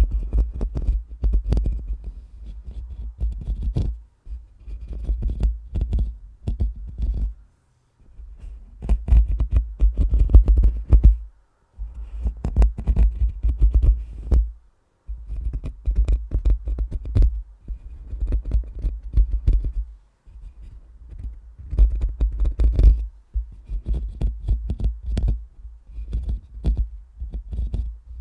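A microphone being scratched and brushed right on its grille for ASMR. The sound comes as dense crackling with a heavy low rumble, in bursts of a few seconds separated by brief pauses.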